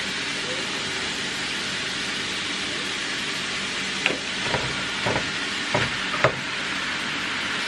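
Ground meat and onions sizzling steadily in a frying pan. About halfway through come a handful of short knocks as more raw ground meat is tipped in from its tray and a plastic spatula meets the pan.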